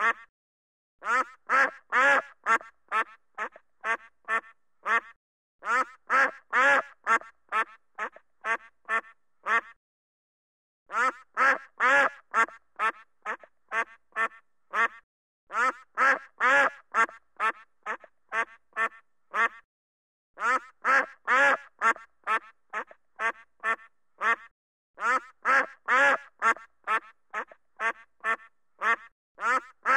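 Duck quacking in quick runs of about ten quacks each, with short pauses between the runs roughly every four to five seconds.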